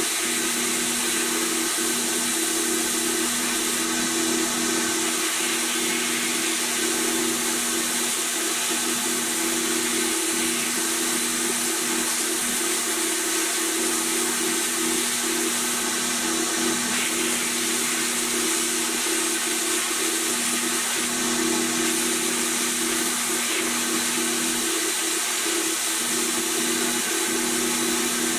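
Abrasive blast gun in a blast cabinet, hissing steadily as it strips paint and rust from a pressed-steel toy truck part, over a steady low hum.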